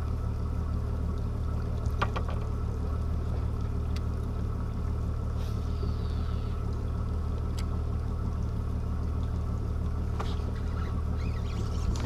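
Boat motor running with a steady, even low hum, and a couple of faint clicks over it.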